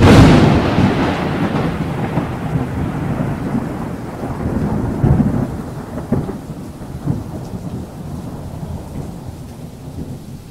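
Thunder sound effect: a sudden loud crack, then a long rolling rumble that slowly fades, with a few swells partway through, over steady rain.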